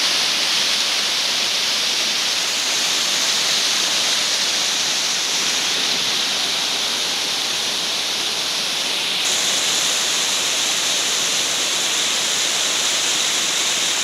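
Small waterfall cascading over rocks: a steady, loud rush of falling water, its hiss shifting slightly in tone about nine seconds in.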